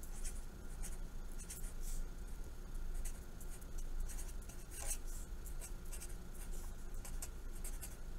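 Black felt-tip marker writing on paper: short strokes of the tip on the paper in quick, irregular succession, letter by letter.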